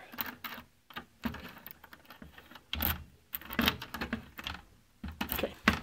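Irregular metallic clicks and rattles of a key being worked in the lock on the front panel of a claw machine cabinet, the sharpest click near the end.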